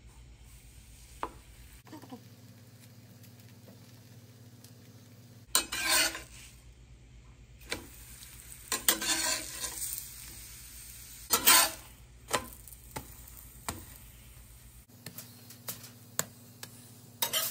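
Steel spatula scraping and knocking on a cast-iron tawa as a stuffed paratha is turned and pressed, with light sizzling underneath. There are a few louder scraping bursts and scattered sharp clicks.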